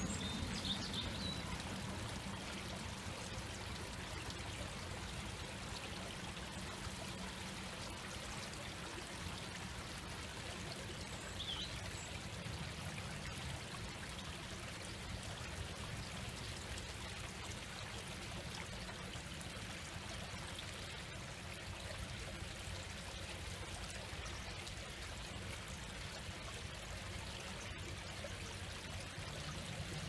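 Shallow stream spilling over a low step in its bed: a steady babble of running water.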